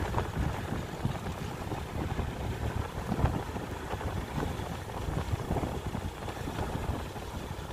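Wind rumbling over the microphone of a moving motorcycle, over its steady engine drone and the hiss of tyres on wet asphalt.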